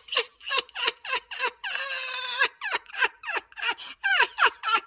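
A very high-pitched, child-like voice making a quick run of short falling syllables, about four a second, with one longer held note about two seconds in.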